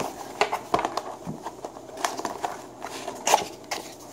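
Small cardboard box being handled and opened on a wooden tabletop: cardboard flaps rustling and scraping, with scattered light taps and clicks, the sharpest a little over three seconds in.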